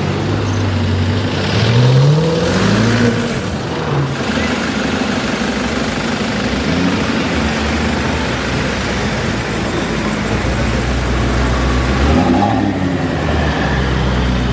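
A car engine accelerating in traffic: its note rises in pitch about two seconds in, over a steady low engine rumble, and another rising and falling engine note passes about twelve seconds in.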